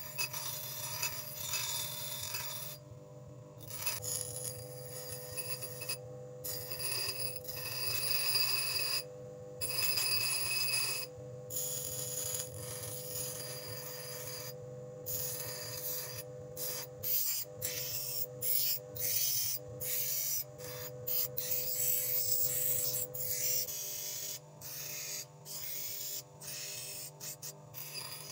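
Crown bench grinder running with a steady motor hum while a thin steel rod is ground against its stone wheel, giving a harsh rasping hiss. The hiss breaks off again and again as the rod is lifted off the wheel and pressed back on.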